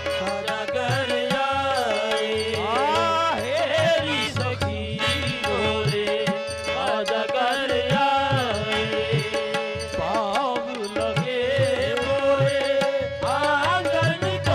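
Qawwali music: the lead singer sings long gliding lines over harmonium chords with a steady held note and a tabla pair keeping rhythm, its bass drum thumping low.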